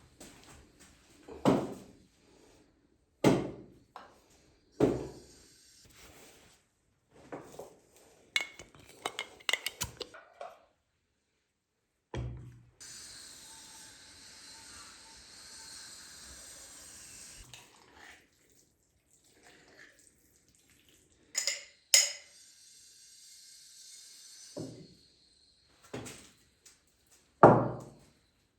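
Kitchen work: dishes knocked and set down one at a time, a short run of clinking and clattering, and about five seconds of water running from a tap in the middle.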